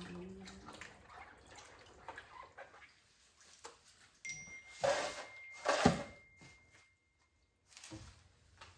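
Water splashing and dripping while fish are cleaned, with scattered clicks and knocks. The loudest splashes come about five and six seconds in, and the sound drops out briefly just after.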